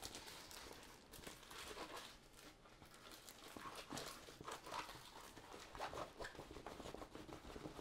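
Faint rustling and crinkling of a rolled diamond-painting canvas as it is handled and re-rolled by hand.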